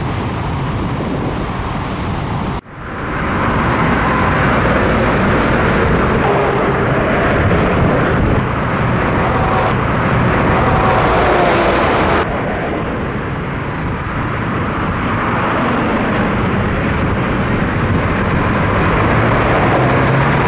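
Motorway traffic: heavy trucks and cars passing at speed with a steady rush of tyre and engine noise. Near the end the low diesel note of a Scania truck grows stronger as it pulls close.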